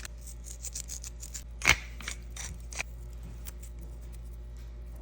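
A few scattered kitchen clicks and taps, with one sharp knock about a second and a half in, over a steady low hum.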